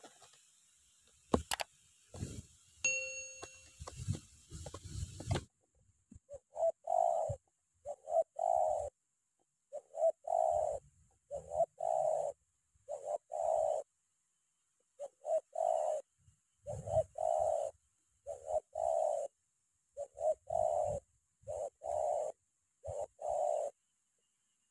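Spotted dove (terkukur) cooing: short coo phrases repeated about every second and a half, beginning about six seconds in, the close, pressing 'tekanan' call that trappers listen for. Before the cooing comes a few seconds of rustling and light clicks, with a brief ringing tone near three seconds.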